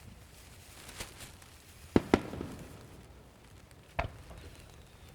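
Aerial firework shells bursting with sharp bangs and no music: a weaker bang about a second in, a loud double bang about two seconds in with brief crackling after it, and another bang about four seconds in.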